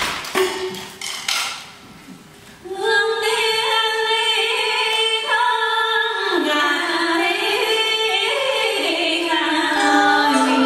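Traditional Vietnamese water puppet theatre music. A few sharp percussion strikes come in the first two seconds, then a woman sings from about three seconds in, in long notes that slide in pitch.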